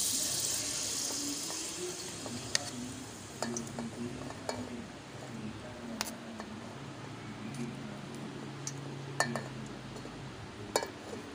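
Boiled rice dropped into hot ghee in a metal pot, sizzling, the sizzle fading away over the first couple of seconds. After that, a few sharp light clinks of a spoon against the pot.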